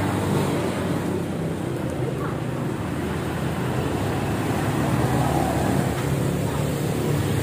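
Steady low rumble of road traffic, with no distinct sudden sounds standing out.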